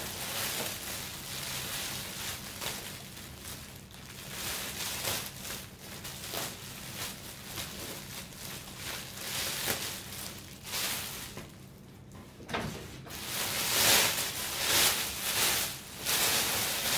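Clear cellophane gift-basket wrap crinkling and crackling as it is handled and torn open by hand. It goes quiet for a moment about two-thirds through, then crackles louder as the wrap is pulled up and apart.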